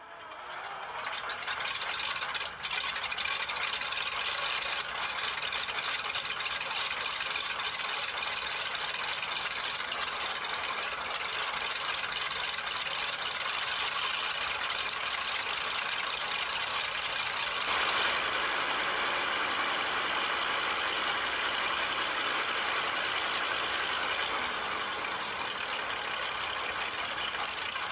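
Chrysler A57 Multibank tank engine running on a test stand: 30 cylinders in five inline-six banks on one crankshaft, 1253 cubic inches, giving a dense, steady engine sound. It fades in at the start, dips briefly a few seconds in, and runs a little fuller and louder from about two-thirds of the way through.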